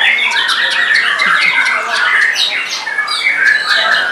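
White-rumped shama (murai batu) singing a loud, continuous song, a fast unbroken string of chattering trills, clicks and short whistled notes.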